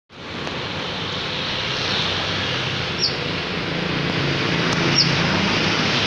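Steady street traffic noise with engine hum, over which a caged sunbird ('kolibri') gives two short, high chirps, about three and five seconds in.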